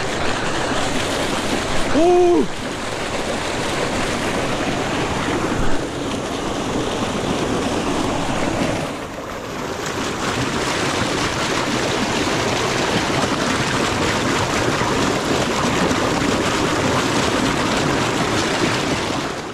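Mountain stream rushing over rocks, a steady dense wash of water. About two seconds in a man gives one short exclamation. After a cut about nine seconds in, water pours through a narrow rock chute into a pool, steady to the end.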